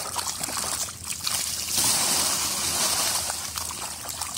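A net full of small fish flapping on wet mud, a dense wet crackle and splatter that grows louder about two seconds in.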